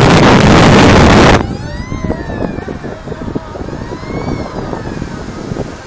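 Wind buffeting a phone's microphone on a moving bicycle, very loud, cutting off suddenly about a second and a half in. After that comes quieter road and wind noise with faint rising-and-falling wailing tones.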